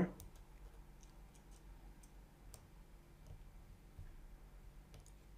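Faint, scattered small clicks of a resistor's wire leads being pressed by hand into the holes of a plastic solderless breadboard.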